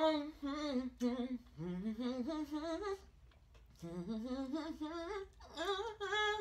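A woman humming a tune in several short phrases that glide up and down in pitch, with a brief pause about halfway through.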